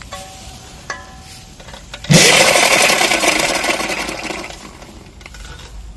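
A motor and chain drive whirring with a fast rattle, starting abruptly about two seconds in and then dying away over a few seconds.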